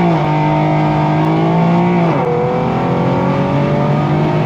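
Infiniti Q50's exhaust, straight through test pipes with the mufflers deleted, under a hard acceleration pull. The revs hold high, drop sharply at an upshift about two seconds in, then climb again.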